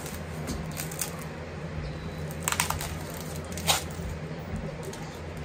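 Paper crackling and rustling as a rolled, paper-wrapped package is handled and unwrapped, with a few sharp crackles about two and a half and nearly four seconds in. A steady low hum runs underneath.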